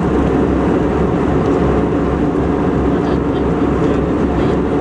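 Steady jet airliner cabin noise in flight: an unchanging rush of engine and airflow noise.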